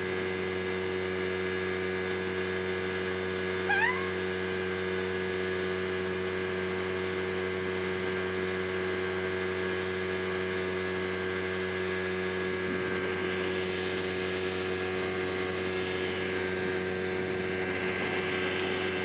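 Speedboat engine running at a steady speed, a continuous drone that does not change in pitch. A brief rising chirp cuts in about four seconds in.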